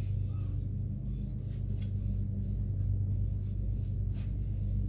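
A steady low hum, with a few faint, brief rustles of a blue paper towel being wiped over the pistol's slide and frame.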